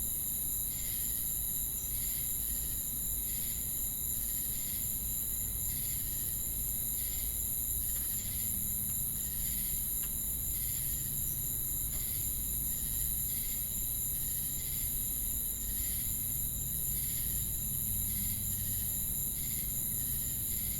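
Crickets chirping in a night chorus: a steady high-pitched trill with a lower chirp repeating about once or twice a second.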